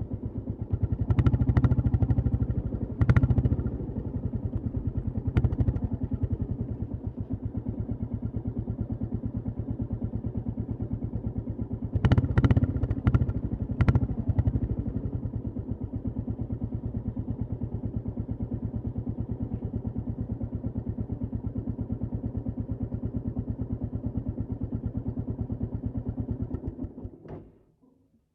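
Royal Enfield Classic 350's single-cylinder engine thumping steadily at low revs, with several short bursts of throttle that get louder. The engine sound dies away near the end.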